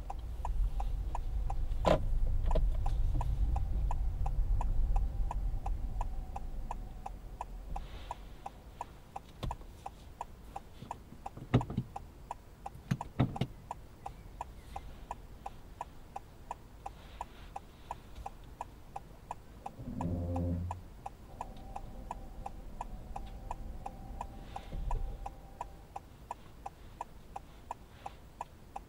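Car's turn-signal indicator ticking evenly, a little faster than once a second, as the car pulls away from the kerb. The engine and road noise rise over the first few seconds as it moves off, then settle lower.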